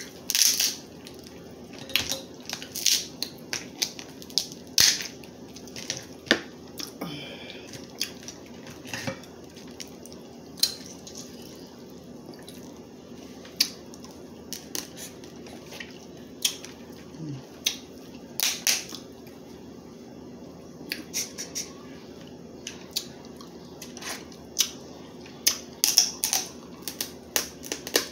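Crab leg shells being cracked and broken open by hand during eating: irregular sharp cracks and crunches, several clustered together near the middle and near the end.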